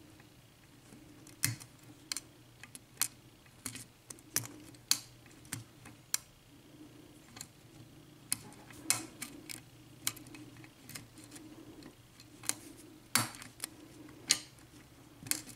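Lock pick working the pins of an ERA six-pin euro cylinder: irregular sharp metallic clicks, roughly one or two a second, as pins are lifted and set under tension. The picker feels that the lock has spool pins. A faint steady hum runs underneath.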